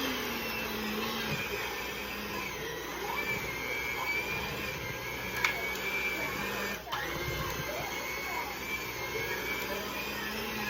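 Electric mixer running steadily with a motor whine as it beats cookie dough, briefly dipping a little before 7 seconds in.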